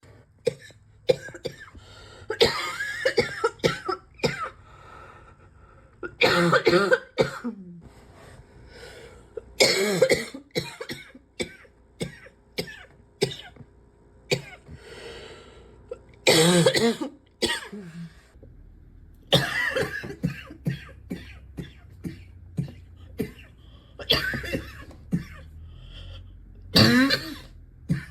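A person coughing in repeated harsh, barking fits, with short throat-clearing sounds between them.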